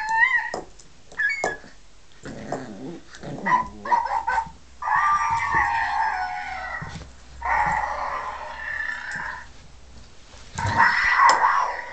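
Noise-making toy ball playing recorded animal noises in several bursts of a second or two, with a Jack Russell puppy growling at it.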